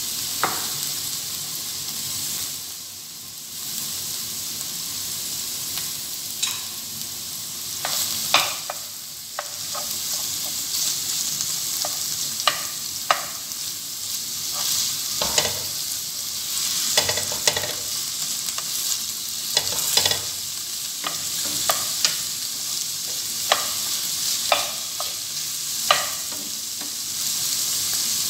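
Diced raw chicken breast frying with onion in olive oil in a pan, a steady sizzle, with a spatula stirring and tapping against the pan at irregular intervals.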